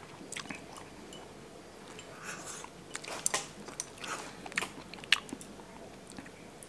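A person chewing a mouthful of fish and rice close to the microphone: soft wet chewing with scattered small clicks and smacks.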